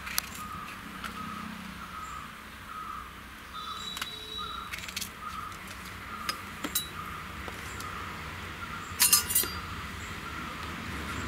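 Light clinks and taps of kitchen utensils as slit green chillies are dropped into an aluminium pressure cooker and a steel spoon is handled, with a louder quick cluster of clinks about nine seconds in.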